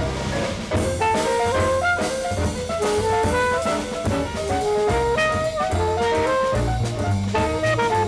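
Jazz instrumental: a horn plays a stepping melody over low bass notes and a drum kit.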